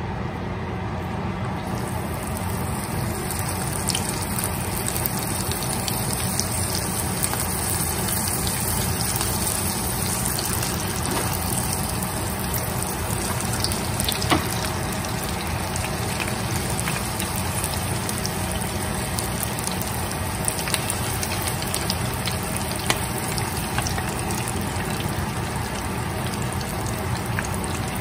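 Shrimp rolls deep-frying in a saucepan of hot oil: a steady sizzle with scattered pops and crackles, which swells about two seconds in as the rolls go into the oil.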